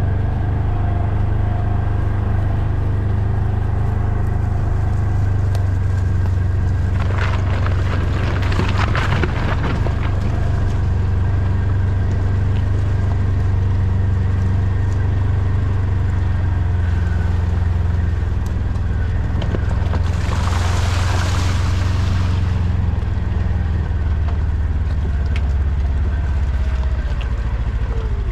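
A motor vehicle's engine running steadily at low revs while driving, with two stretches of rushing noise, the first about 7 seconds in and the second about 20 seconds in.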